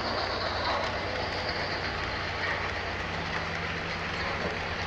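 Model railroad train rolling past on the layout track: a model Southern Pacific GS-6 steam locomotive and its train of refrigerator cars make a steady rolling noise over a low hum. A second low, steady tone joins about three seconds in.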